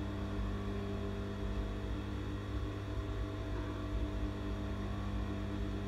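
Electric sewing machine running steadily as it stitches loop pieces onto a neckline, its motor giving a constant hum.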